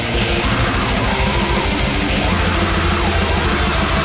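Heavy metal music with distorted guitars and fast, driving drums.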